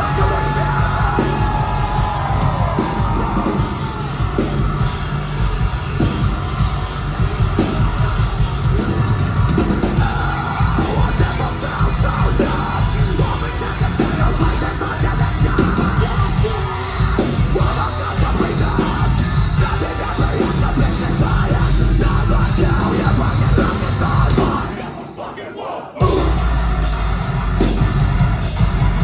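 Metalcore band playing live at full volume: distorted guitars, bass and drums with screamed vocals, heard from within the crowd. About 24 seconds in, the music thins out for a second and a half, then the full band comes back in at once.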